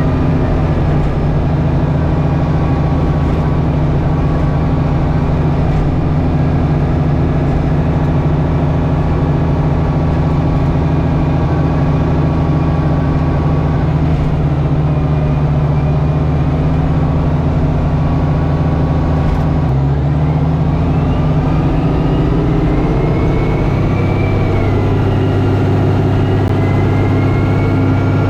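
Tractor engine running steadily while plowing packed snow and ice. About two-thirds of the way through its note drops lower, and a thin whine rises and falls near the end.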